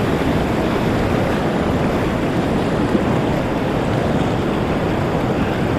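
Whitewater rapid rushing loudly and steadily around a kayak being paddled, heard close up from the boat, with wind noise on the microphone.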